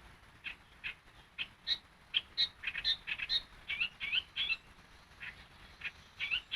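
Yellow-vented bulbul (trucukan) singing: a run of short, quick chirping notes, some sweeping briefly up or down in pitch, sparse at first and becoming busy about two seconds in.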